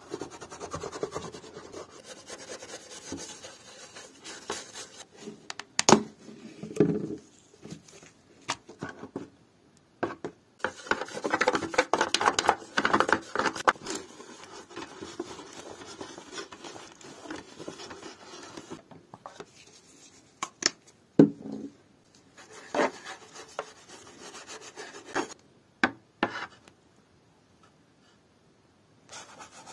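Cloth rubbing and wiping over a plastic mirror cabinet frame and shelf, with a few sharp knocks as the plastic parts are handled. The scrubbing is thickest about a third of the way in, and it goes quiet shortly before the end.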